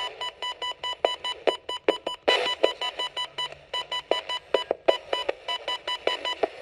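Rapid electronic alert beeping: a high tone pulsing quickly on and off, with irregular clicks underneath.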